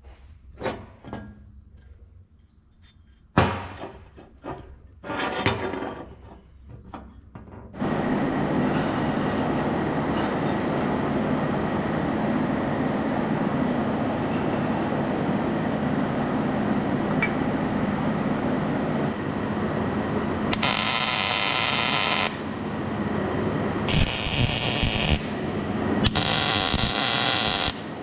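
A few knocks and clinks of tools on metal. Then, from about eight seconds in, a loud steady noise with three louder bursts near the end.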